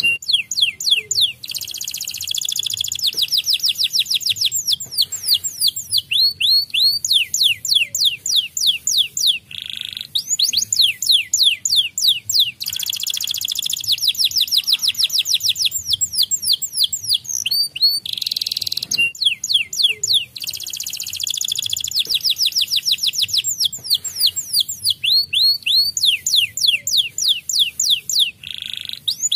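White domestic canary singing a long, continuous song of fast repeated sweeping notes and buzzy trilled rolls, with brief pauses between phrases.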